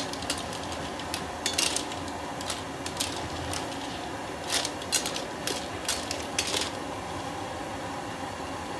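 Clams boiling in a large wok of water, which bubbles steadily, while a slotted metal skimmer scoops them out; the shells clink against each other and against the metal in a dozen or so irregular clicks through the first two-thirds.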